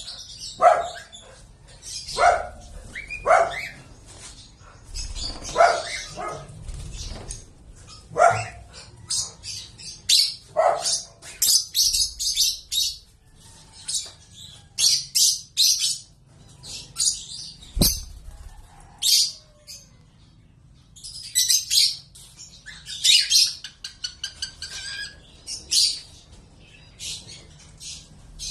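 Lovebirds chirping and screeching in short, rapid bursts, with a dog barking repeatedly during the first ten seconds or so. One sharp knock comes about eighteen seconds in.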